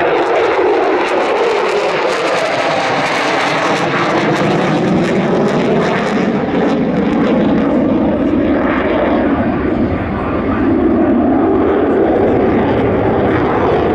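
F-16 fighter jet's turbofan engine roaring through a display pass, loud and continuous, its tone slowly sweeping up and down as the jet moves.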